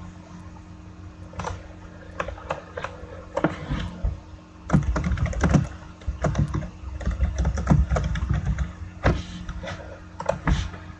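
Irregular clicks and knocks, bunched most densely in the second half, over a steady low hum.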